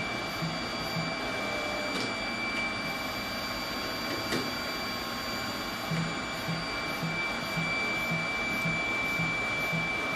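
TriFLEX microplate washer with 300-DMC dispenser running a 100 µL dispense: a steady motor whine and hiss, with a low pulse repeating about twice a second that becomes regular about six seconds in.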